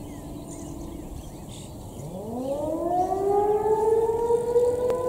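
American Signal T-128 rotating civil defense siren winding up: about two seconds in, a low tone glides steeply upward and gradually levels off into a steady high tone as it nears full speed. Birds chirp faintly.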